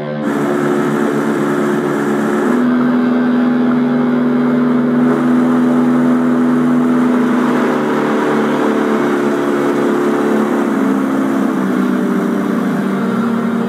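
An engine running at a steady speed, dropping slightly in pitch near the end.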